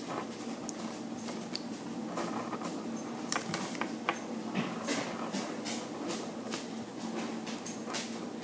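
Fine-tip inking pen scratching across paper in quick short strokes, one or two a second, as hair strands are inked, over a faint steady low hum.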